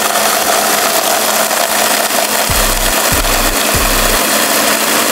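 Blender running steadily at full speed, grinding Takis rolled tortilla chips into crumbs. A bass line of background music comes in about halfway through.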